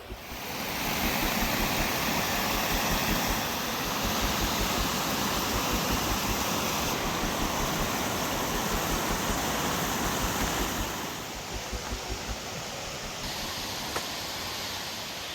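Steady rushing of flowing water, a stream or small waterfall, which drops a little in level about eleven seconds in.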